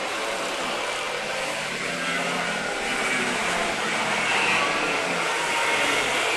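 Racing kart engines running at speed during a race, their pitch wavering up and down over a steady rush of noise.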